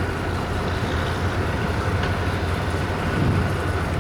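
Steady low engine rumble of heavy construction machinery, with a thin steady whine above it and a slight swell about three seconds in.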